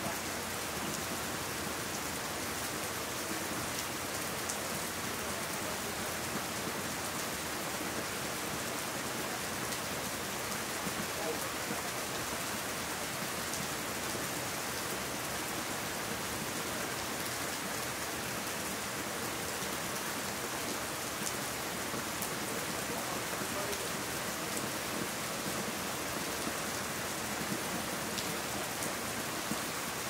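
Steady rain falling: an even hiss, with faint ticks of single drops.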